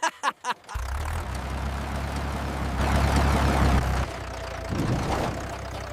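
Tractor engine running with a steady low rumble, after a few short clicks at the start. It is loudest shortly before the middle and drops to a quieter run about four seconds in.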